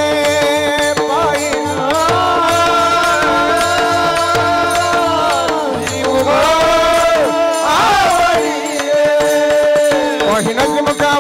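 Marathi devotional kirtan music: long held melodic notes that bend in pitch a little after halfway, over steady percussion and jingling hand cymbals.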